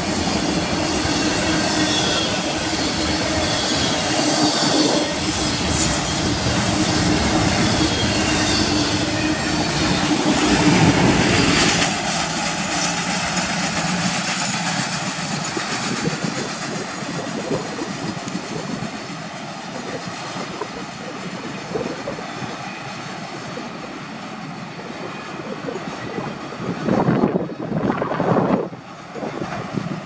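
Double-stack intermodal freight cars rolling past, their wheels clattering on the rails with a high-pitched squeal. The sound fades after about twelve seconds as the end of the train moves away, and near the end gusts of wind hit the microphone.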